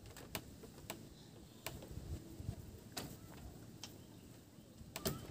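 Faint sharp clicks at irregular intervals, about one a second, with a double click near the end.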